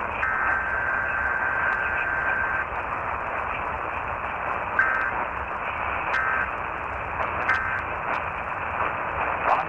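Steady radio static: the hiss of a receiver on a weak, noisy signal, with a faint thin whistle that holds for about two seconds near the start and then returns in short blips. The sound cuts off abruptly at the very end.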